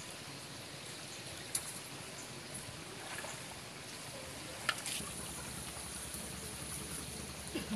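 Steady outdoor background hiss with a water-like, trickling character, broken by a few faint sharp clicks.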